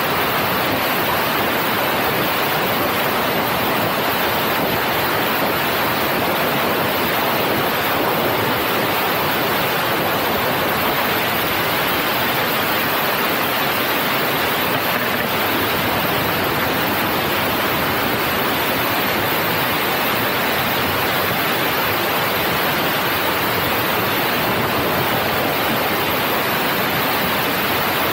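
Steady rush of a passenger train running at speed, picked up by a camera mounted on the outside of a carriage: wind on the microphone and the running noise of the wheels on the rails merge into one even hiss with no clear rhythm.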